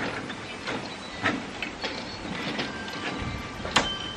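Metal legs and frame of a folding camp kitchen clanking and clicking as they are handled and fitted: several sharp knocks with brief metallic ringing, the loudest near the end.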